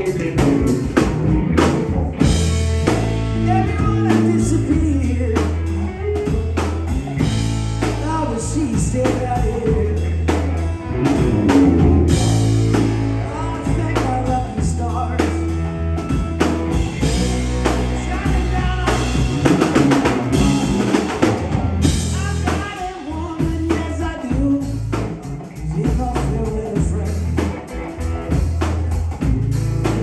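Live rock trio playing: electric guitar, electric bass and a drum kit, with a steady beat.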